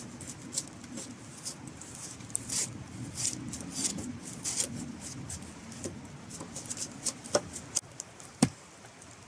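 Machete blade scraping bark off a wooden pole in short, irregular strokes, with one sharp knock about eight seconds in.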